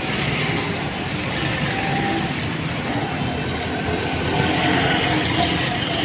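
Steady road traffic and street noise, an even mechanical rumble and hiss with no single engine standing out.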